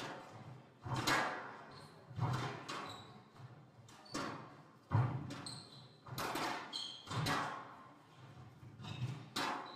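Squash rally in a large hall: the ball cracking off rackets and walls in a run of sharp, echoing hits, roughly one every half-second to second, with short squeaks from court shoes on the wooden floor between them.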